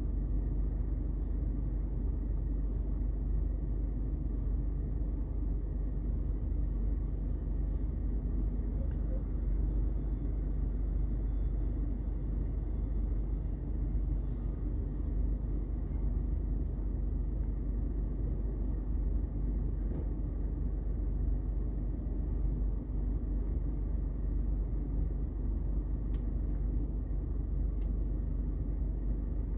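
Rear-loader garbage truck's diesel engine idling, a steady low rumble, with a couple of faint ticks near the end.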